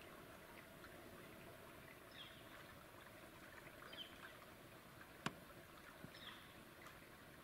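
Quiet woodland: a bird gives a short, high, falling call about every two seconds, and a single sharp click sounds a little past five seconds in.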